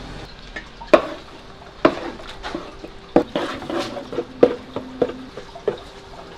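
Vinegared sushi rice being mixed with a rice paddle in a wooden hangiri tub: a run of sharp knocks, roughly one a second, as the paddle strikes the tub, with soft scraping and stirring of the rice between them. The first knock, about a second in, is the loudest.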